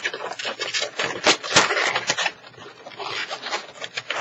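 Latex 260 modelling balloons rubbing and squeaking against each other as they are twisted and tied together, in an irregular run of short squeaks and rubs.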